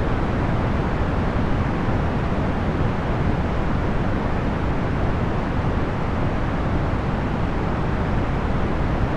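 Procedurally generated box fan noise: a steady, even rush weighted toward the low end, with no motor hum and no change in level.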